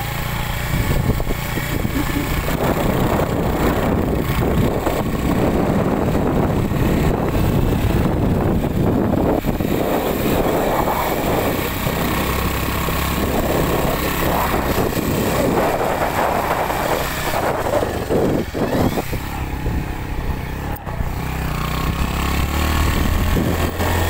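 A vehicle running steadily on the move: a low rumble under a dense rushing noise that rises and falls.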